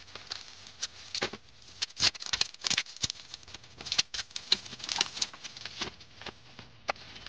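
Black plastic mailer bag crinkling and clear packing tape being peeled and torn off by hand, an irregular run of sharp crackles.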